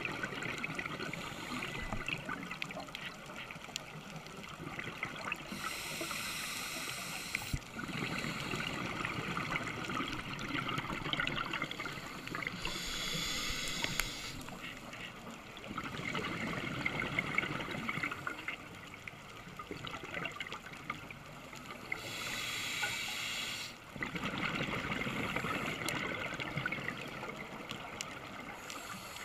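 Scuba diver breathing through a regulator underwater: three short, high hisses of the regulator, several seconds apart, between longer stretches of crackling, bubbling exhaled air.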